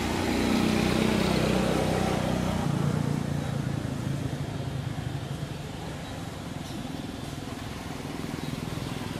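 A motor vehicle's engine running, loudest in the first few seconds and then fading.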